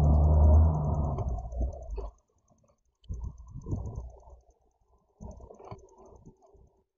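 Honeybees inside the hive close to the microphone: a low buzzing hum for the first two seconds, then irregular scratchy clicking and rustling of bees moving, broken by short silent gaps.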